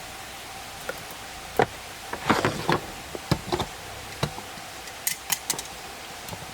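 Irregular light clicks and knocks, about a dozen at uneven spacing and thickest a little over two seconds in, over a steady hiss.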